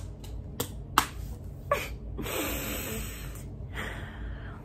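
A woman's breathy, soft laugh and breaths, with a few small mouth clicks in the first two seconds, over a low steady room hum.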